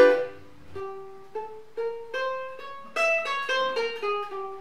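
Ukulele chord strummed once, loud, then a short melody of single plucked notes, about two to four a second.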